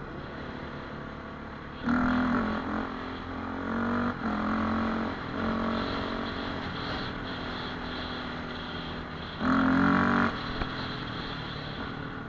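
Dirt bike engine running under way on a gravel track, with the throttle opened hard twice, about two seconds in and again near ten seconds, in loud bursts.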